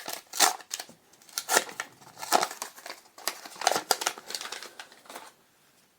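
Trading-card booster pack being opened and handled: the foil wrapper crinkling and tearing and the cards scraping and flicking against each other, in a run of short scratchy rustles that die away about five seconds in.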